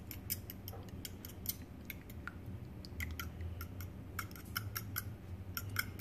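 A metal fork beating raw eggs in a bowl: quick, irregular clicks of the tines striking the bowl, several a second.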